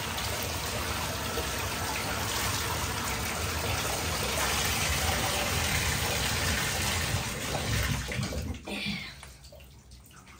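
Water running into a bathtub and splashing on the tub floor while a puppy is rinsed. The water stops about eight and a half seconds in.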